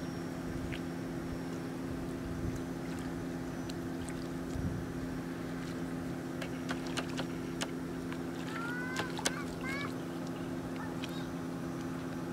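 Steady low drone of a distant engine, with small splashes and squelches of hands feeling through shallow muddy water. A few short rising bird chirps come a little past halfway.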